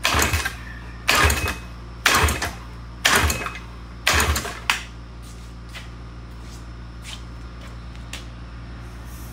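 1972 Johnson 6 hp two-cylinder two-stroke outboard being cranked with five pulls of the recoil starter rope, about one a second, with the spark plugs out for a compression test, so it turns over without firing. A few faint clicks follow.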